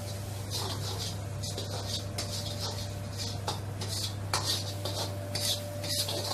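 Steel ladle scraping and stirring around a wok in repeated irregular strokes, tossing chopped onion, dried red chillies and star anise in hot oil. The oil sizzles under each stroke, over a steady low hum.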